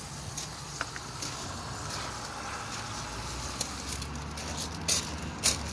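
Low vehicle-like engine rumble that builds about halfway through over a steady low hum, with a few short crunching clicks near the end, typical of footsteps on gravel.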